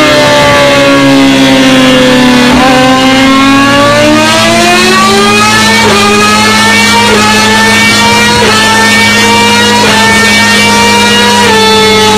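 Rusi Gamma R200 motorcycle engine under way: its note sinks for the first two or three seconds as the throttle eases, then climbs steadily as the bike accelerates again.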